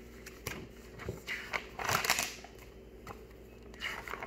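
Pages of a large paperback picture book being turned and handled: paper rustling and swishing, loudest about two seconds in and again briefly near the end.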